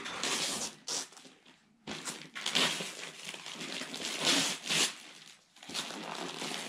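Wrapping paper being torn and crinkled by hand as a present is unwrapped, in rustling bursts with two brief pauses, one about two seconds in and one about five seconds in.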